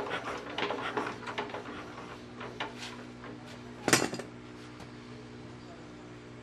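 Metal tools clinking and tapping against a small diesel engine's parts as they are handled, with one louder metal clank about four seconds in. A faint steady hum runs underneath.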